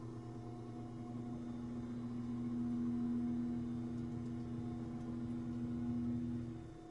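A steady low whirr made of several held tones, growing louder toward the middle and dropping away shortly before the end.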